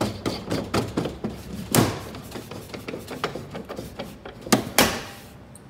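Irregular plastic clicks and knocks from working a Thule roof box's Power-Click quick-mount fittings on the roof bar. There is a louder knock about two seconds in and two more near the end.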